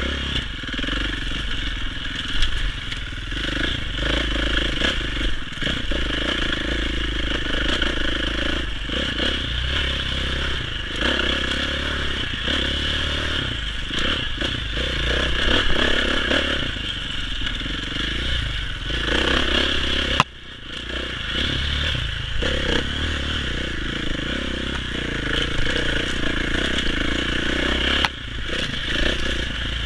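Dirt bike engine running hard along a rough trail, the throttle opening and closing through the turns, with scraping and clattering from the bike over the ground and a low rumble of wind on the helmet-mounted microphone.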